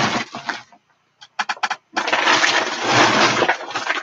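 Loud rustling and handling noise as things are moved about close to the microphone, in two spells with a short pause and a few sharp clicks between them.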